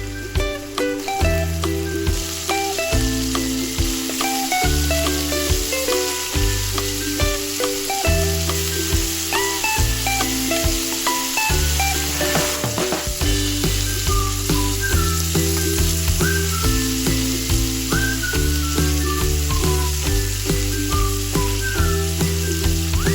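Food sizzling as it fries in a pan, a steady hiss that sets in about two seconds in, heard over background music with a changing bass line and melody.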